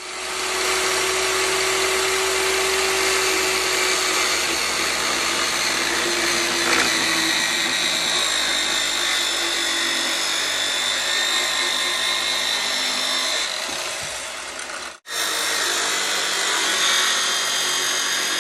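Electric power tool running steadily on wood, with a high motor whine that drifts slightly in pitch. It cuts out abruptly about fifteen seconds in and starts again almost at once.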